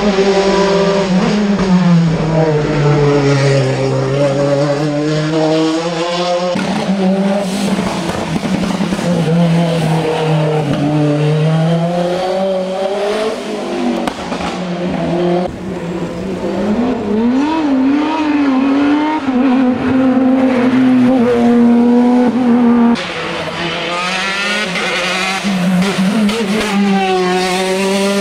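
Hill-climb race cars running hard up the course, their engine notes rising with acceleration and dropping at each gear change. The sound changes abruptly a few times, switching from one car to the next.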